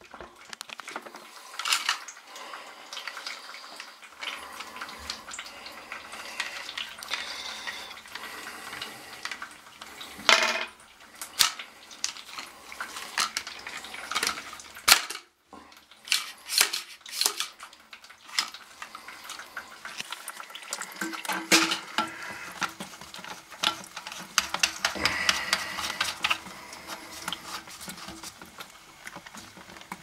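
Plastic toilet fill valve being handled and fitted at the cistern: irregular clicks, knocks and clatter of hard plastic parts, with a few louder knocks.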